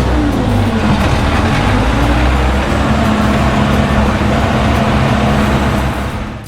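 Cummins diesel engine of a 1987 Timberjack 230 forwarder running while driving, its pitch rising and falling in the first seconds, then holding steady. It drops away suddenly at the very end.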